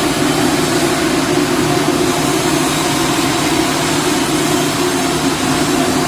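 Aluminum welding arc burning steadily, an even loud hiss over a constant hum from the welding setup.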